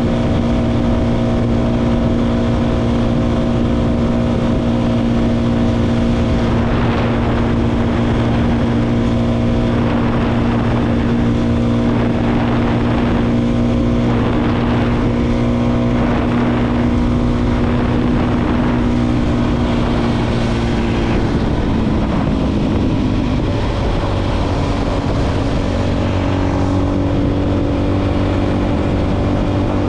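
Motorcycle engine running at a steady cruise under constant wind and road noise, with a regular swish about every second and a half through the middle. About two-thirds of the way through, the engine note drops and settles at a new pitch.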